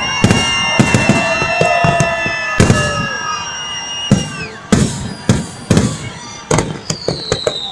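Fireworks display: shells bursting in an irregular series of about a dozen sharp bangs, with long whistling tones held over them, one gliding slowly down near the end.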